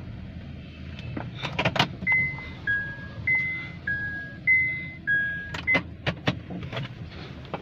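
Inside a car cabin: a low steady hum, a few sharp clicks and knocks, then an electronic two-tone beep alternating high and low, about six tones of half a second each, followed by more clicks.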